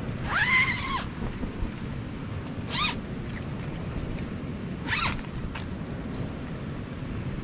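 Tent door zipper being pulled open in three strokes: one longer pull right at the start, then two short pulls about two seconds apart.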